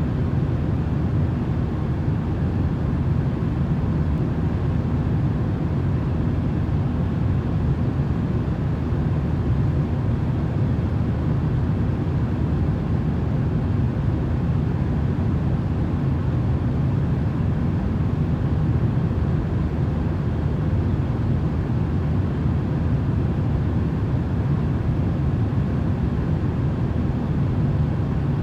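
Steady, unchanging low rumbling noise from a white-noise sleep track, with a faint steady tone above it and no breaks or changes.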